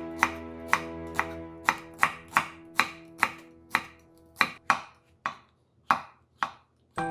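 Kitchen knife chopping green onion into rounds on a wooden cutting board, then slicing shiitake mushrooms, with sharp knife strikes about two a second against the board. Soft background music fades out partway through and returns at the very end.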